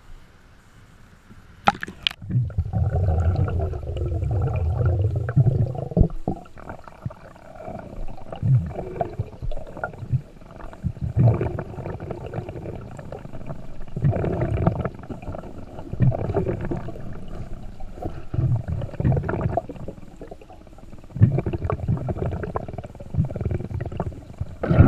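A splash about two seconds in as the microphone goes under the water, then a bubbling rush and repeated muffled gurgles and swishes of water from a diver moving underwater.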